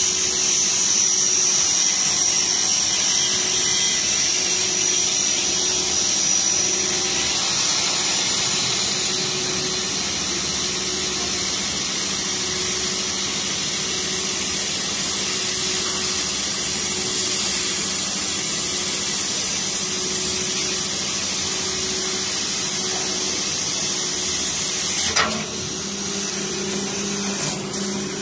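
CO2 laser cutting machine running while it cuts plywood: a steady hiss from its air assist and fume extraction, with a high whine that fades after about eight seconds and a faint low hum that pulses evenly. A sharp knock comes about 25 seconds in.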